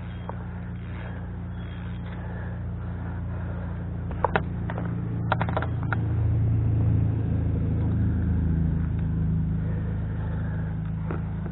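A low, steady motor rumble that swells about six seconds in and eases off near the end. Several sharp clicks and knocks come between about four and six seconds in.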